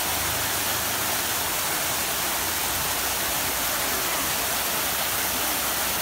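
Waterfall cascading over rocks into a pool: a steady rush of water.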